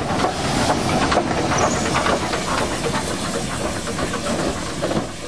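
0-6-0 steam tank locomotive on the move: steady hissing of steam with a run of irregular sharp chuffs and clanks from its running gear on the rails.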